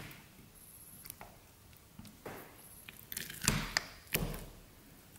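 Clear glue slime, just starting to thicken, being stirred with a spatula in a glass bowl and pulled up out of it. Soft stirring sounds at first, then louder squishes and sharp clicks between about three and four and a half seconds in.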